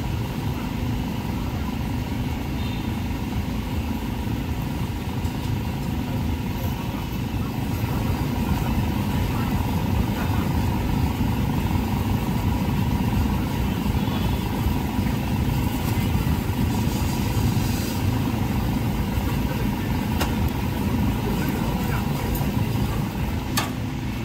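A steady low rumble with a faint constant hum, and voices in the background.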